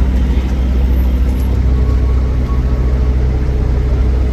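A steady, low engine-like hum that runs unbroken.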